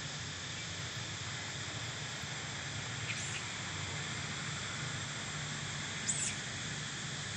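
Steady outdoor ambience of insects buzzing in a continuous even drone, with two brief high chirps about 3 seconds in and again about 6 seconds in.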